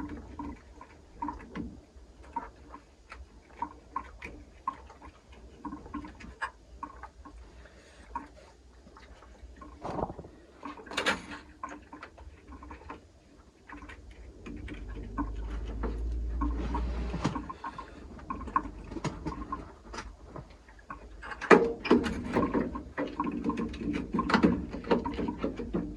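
Small clicks, taps and scrapes of hand work on a boiler's automatic air vent and its housing, as the housing is wiped clean and parts are handled. A low rumble comes in for a few seconds about midway, and the handling noise gets busier near the end.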